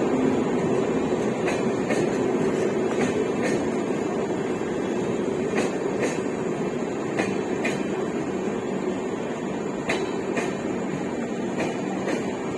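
Passenger coaches of an Indian Railways express rolling slowly past on arrival: a steady rumble, with pairs of wheel clicks over rail joints every couple of seconds.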